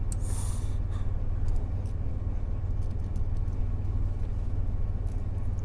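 Steady low background hum, with a short scraping hiss near the start and a few faint clicks of small metal lock parts being handled.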